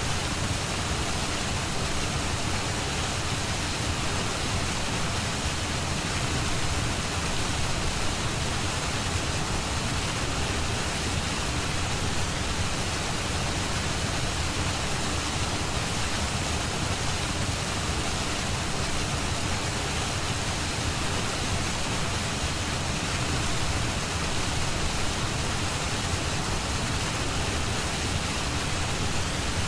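Steady, unbroken rushing hiss, an even noise bed with no changes, used as the masking layer of a subliminal audio track.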